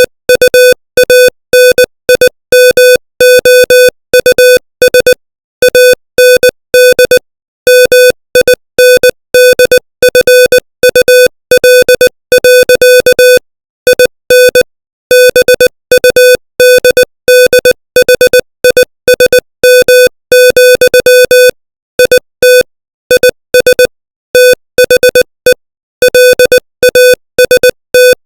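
Morse code sent at 20 words per minute: one steady mid-pitched beep tone keyed on and off in short dots and longer dashes, with brief gaps between letters and longer ones between words, spelling out plain-language text.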